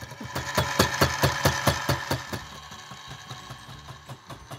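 Carbide-tooth fly cutter on a benchtop milling machine taking a facing cut across a steel hammer head, its single tooth striking the steel about five times a second over the steady run of the mill's motor. The strikes are loudest for the first two seconds or so, then fade.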